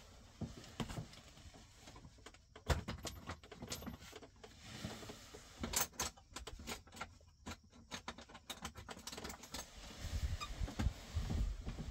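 Handling noise: a jacket rustling close by with scattered metallic clicks and knocks as the latches on a Humvee's engine cover are worked loose.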